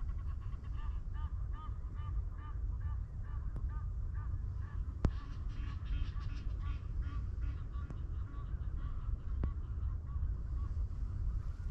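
Geese honking in a quick run of repeated calls that thin out and stop about eight seconds in, over a steady low rumble, with a sharp click about five seconds in.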